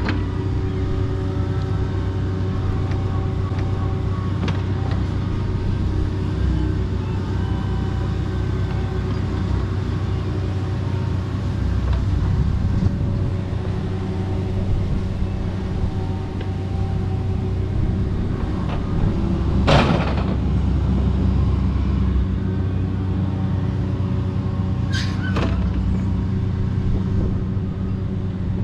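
Kobelco SK85 MSR excavator's diesel engine running steadily as the machine works, with a few sharp knocks, the loudest about twenty seconds in and two close together a few seconds later.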